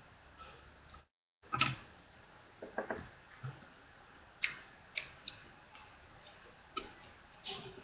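Faint, irregular small clicks and taps of a loom hook working rubber loom bands on a plastic loom, about a dozen over several seconds, with the audio cutting out completely for a moment about a second in.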